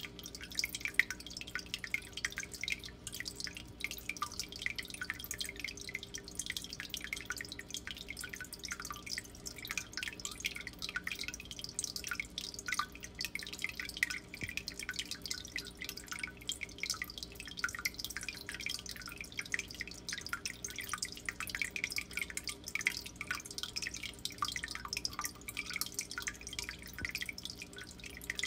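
Water dripping and trickling in a steady, dense patter of small drops, with a low steady hum underneath.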